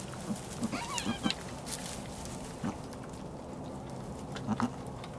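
Nigerian Dwarf goats, a doe with her newborn kids: a short, wavering bleat about a second in, and a few brief, soft, low calls scattered through the rest.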